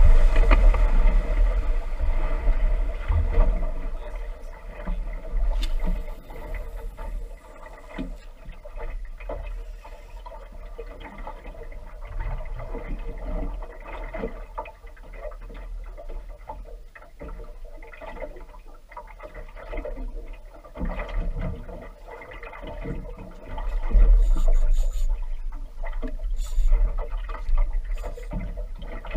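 Boat's outboard motor easing off over the first few seconds as the boat slows from running speed, then ticking over quietly while small waves slap against the hull. Low wind buffeting on the microphone in the last few seconds.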